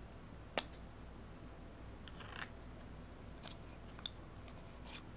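Plastic 35mm film canister being opened: a sharp snap about half a second in as the cap comes off, then a short scraping rustle and a few lighter clicks as the film cassette is handled.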